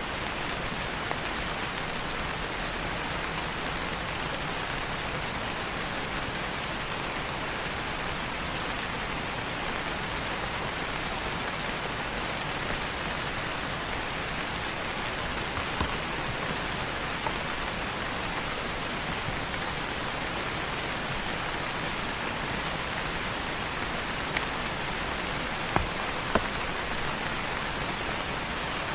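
Steady rain falling on foliage in a rainforest, an even hiss with a few louder individual drops landing near the end.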